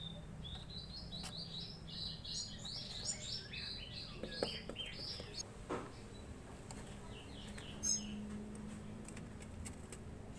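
Young Javan bushlarks chirping: a quick run of short, high chirps for about five seconds, then a few fainter chirps, with a few sharp clicks between.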